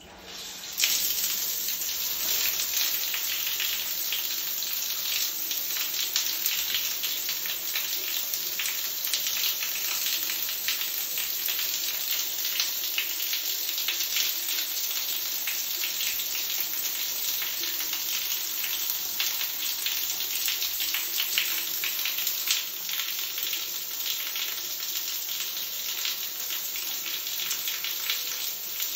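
Water spraying steadily onto a wet tiled floor and socked feet, a dense hiss of many small droplet patters that starts suddenly about a second in.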